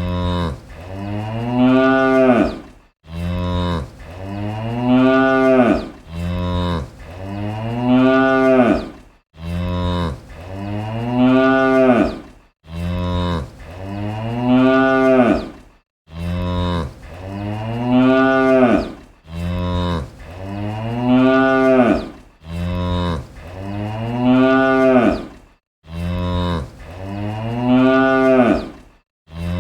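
A cow mooing: long, drawn-out moos one after another, about one every three seconds, each call rising in pitch and swelling louder toward its end before breaking off.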